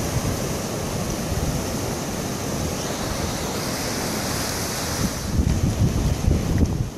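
Surf washing and breaking on the beach, with strong wind buffeting the microphone; the gusts rumble harder about five seconds in.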